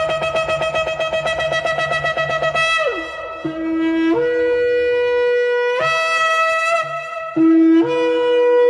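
A horn blowing long, loud blasts at a few pitches. The first three seconds are a fast fluttering note, followed by steady held notes that drop to a lower pitch and climb again.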